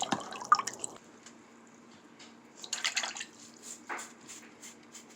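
Bearded dragon making wet clicking, sputtering sounds after drinking too much water, like a cough. There is a dense cluster of clicks near the middle, then a run of short regular clicks about three a second.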